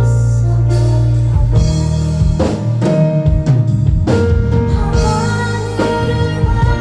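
Live band music: guitar and drum kit playing an instrumental passage of a pop ballad, loud and full, with sustained notes.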